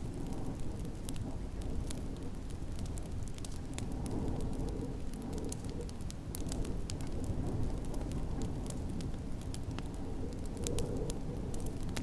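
Wood fire crackling in a fireplace, with scattered sharp crackles and pops over a steady low rumble of snowstorm wind.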